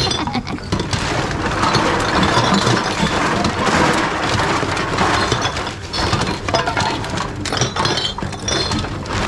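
Reverse vending machines taking in empty plastic bottles and drink cans: the containers clatter and clink as they are fed in and drop through the machine. A few short high-pitched rings come and go.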